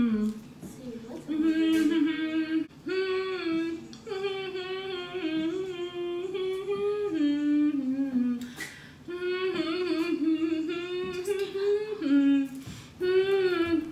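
A woman humming a song's melody in a series of held, stepping notes, in phrases broken by short pauses for breath.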